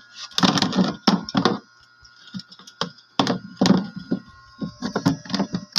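A series of irregular knocks and clunks from handling a portable PA speaker's amplifier control panel and plastic cabinet, with a faint steady high whine underneath.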